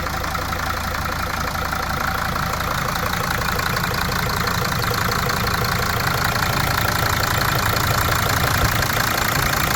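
Mercedes OM612 2.7-litre five-cylinder common-rail diesel idling steadily with the engine cover off, its injector clatter plainly heard. A normal, pleasant sound, the engine running evenly after the injector was reseated and its thread repaired.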